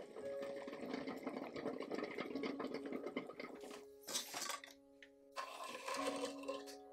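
Water at a rolling boil bubbles around eggs in a stainless saucepan for about three and a half seconds. Then come two short splashy water noises. Soft background music with held notes runs underneath.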